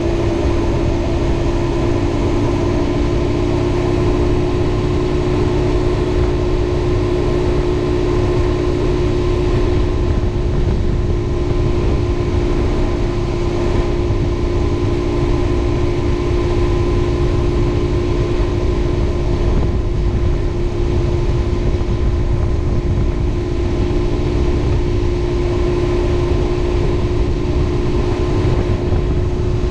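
2007 Honda VFR motorcycle's V4 engine running at a steady pitch while riding, over a constant low rumble of wind on the microphone.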